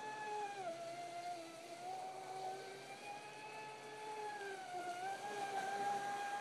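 Spartan RC boat's brushless electric motor whining as the boat runs across the water. The pitch dips briefly about a second in and again near the end as the throttle eases, then climbs back.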